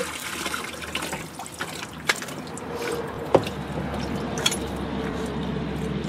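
Water from a sump pump's PVC discharge pipe pouring into a bucket inside a plastic bin, dying away to trickling and dripping once the pump is unplugged. A few sharp knocks, the loudest just past halfway.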